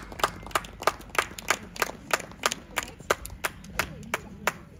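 Hands clapping in a steady rhythm, about three claps a second.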